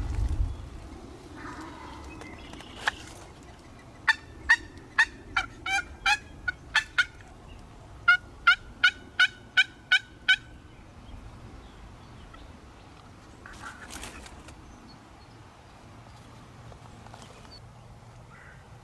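Two runs of turkey yelps, the first of about nine evenly spaced notes and the second of about seven, with a fainter call later on.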